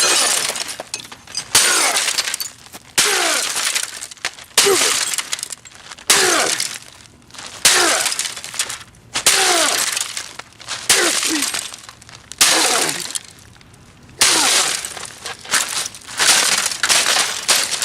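A Canon PIXMA MP620 inkjet printer being smashed again and again: about a dozen loud crashing blows, one every second or two, each with cracking and breaking and a short falling ring.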